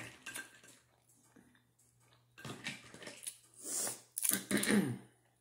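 Close-miked eating of snow crab legs. After a quiet moment, from about two and a half seconds in, there are short bursts of shell cracking and crab meat being pulled and chewed, with a brief hummed voice sound near the end.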